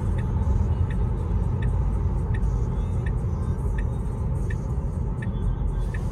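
Steady road and tyre rumble inside a Tesla Model 3's cabin at highway speed, with a light turn-signal tick repeating about every 0.7 seconds.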